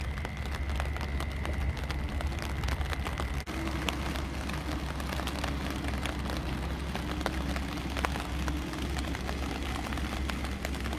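Wind rumbling on the microphone outdoors, a steady low buffeting with scattered small ticks through it.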